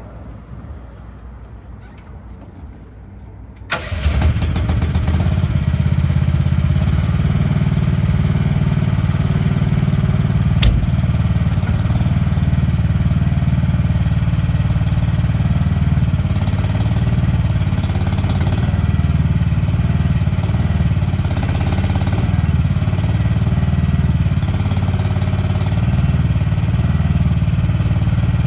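AGT QH13R mini excavator's small engine starting about four seconds in, then running steadily. One sharp knock comes about ten seconds in.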